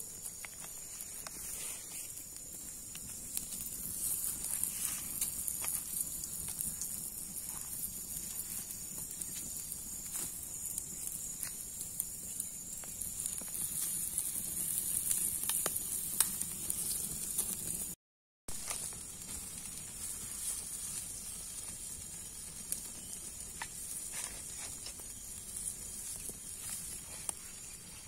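Open wood fire crackling under a whole chicken on a wire grill, with a steady high hiss of sizzling and many small pops and cracks. The sound cuts out for a moment a little past halfway.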